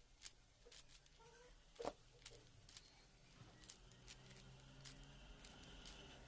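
Faint, irregular clicks of a 4x4 Rubik's cube's layers being turned by hand, with one louder click about two seconds in.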